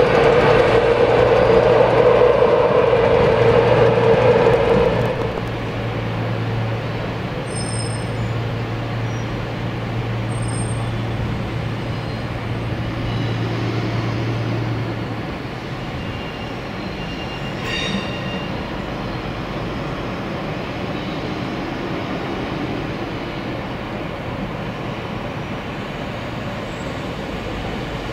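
A train moving at a railway station, loud with a strong drone for the first five seconds, then dropping to a quieter, even noise. A steady low hum carries on until about halfway through, and a single sharp click comes a little later.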